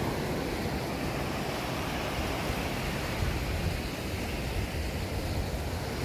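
Small waves washing steadily onto a sandy beach, with wind rumbling on the microphone.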